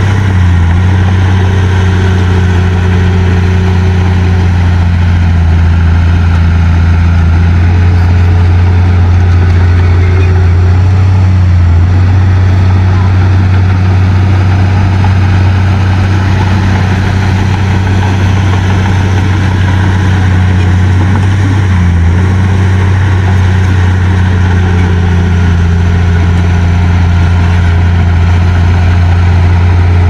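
Diesel engines of heavy earthmoving machinery, a bulldozer and a dump truck, running steadily with a loud low drone.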